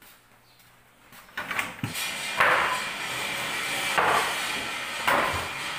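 Wooden cabinet doors being handled, with knocks and rough scraping or sliding noise that swells three times.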